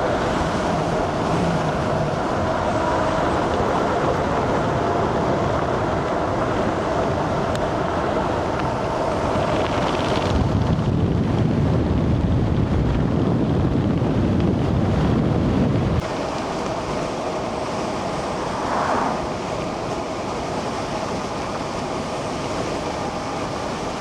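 Wind buffeting the microphone and the running noise of an electric bike ridden at speed. A heavier low rumble comes in partway through and cuts off suddenly about two-thirds of the way in.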